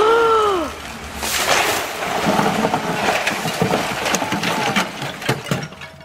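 A short rising-then-falling human cry, then the crash of a tall palm tree falling onto a house's tiled roof, followed by rustling fronds and a run of sharp cracks and knocks.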